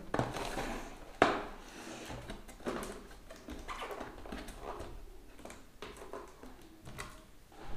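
Cardboard packaging being handled and shifted: rustling and scraping with scattered knocks, the sharpest about a second in.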